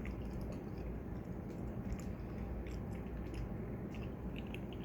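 A person chewing a soft, chewy mango jelly: faint wet mouth clicks and squishes scattered over a low steady hum.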